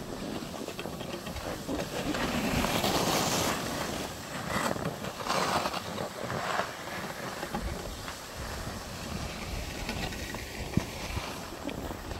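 Hissing scrape of board edges sliding over packed, groomed snow while riding downhill, swelling in several louder surges between about two and seven seconds in.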